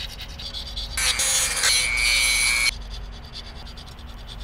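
Hand file scraping across the metal edge of a spoon-handle ring held in a vise, trimming it down. About a second in comes a much louder, harsher scrape lasting under two seconds, with a steady high tone in it, that stops abruptly; lighter rasping before and after.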